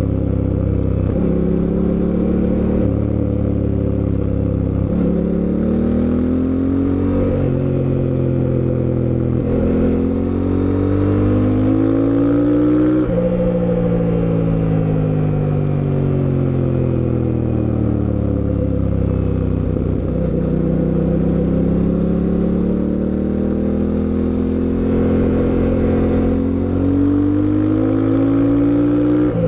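Fantic Caballero 700 Scrambler's parallel-twin engine under way. It accelerates through several gears, with the pitch climbing and breaking at each upshift. The revs then fall for several seconds as it slows, and it pulls up again in one long rising run near the end.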